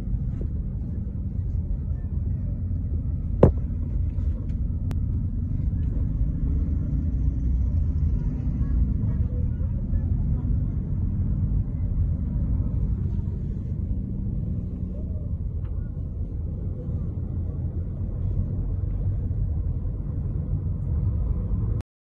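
Steady low rumble of a car on the move, heard from inside the cabin, with one sharp click about three and a half seconds in. The sound cuts off suddenly just before the end.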